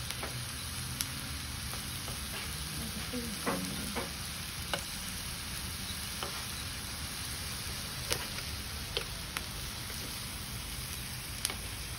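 Pork belly sizzling on a round grill pan, with sharp clicks of metal tongs against the pan now and then.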